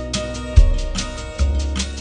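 Background music with a quick, even rhythm and deep bass notes.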